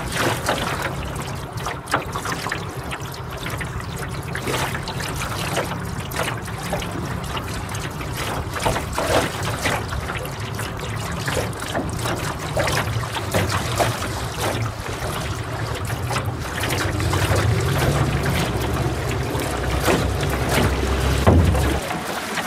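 Choppy lake water lapping and slapping irregularly against the hull of a small boat, over a low steady rumble.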